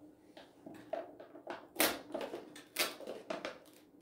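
Plastic food packaging being handled and crinkled, an irregular run of small crackles with two sharper, louder crackles partway through.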